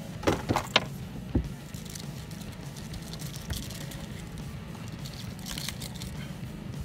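Short splashes and knocks of water and a large tarpon against the boat's hull as it is held alongside, several in the first second and a half, over a low steady hum.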